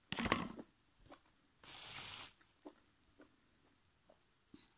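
Close-up eating sounds: a person chewing a mouthful, with a short wet mouth sound at the start, a brief breathy hiss about two seconds in, and scattered faint wet clicks.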